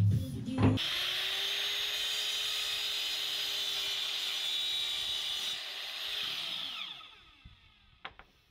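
Sliding compound mitre saw running at a steady whine while cutting a white kitchen pelmet strip. About six and a half seconds in, the blade winds down with a falling pitch, followed by a single click. Background music plays briefly at the very start.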